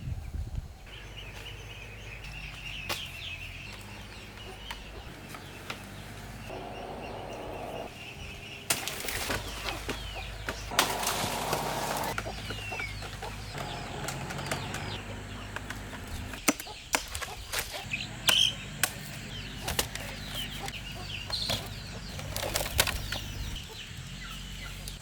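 Farmyard birds: wings flapping and rustling with short chirps, amid scattered knocks and clicks.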